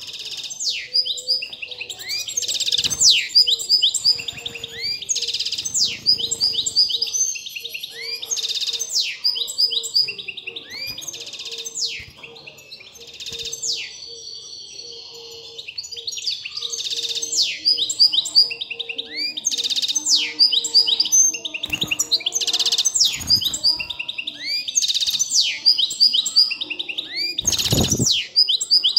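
European goldfinch singing a fast, twittering song in a breeding cage, with a softer patch in the middle; a bird in full breeding condition. A short thump comes near the end.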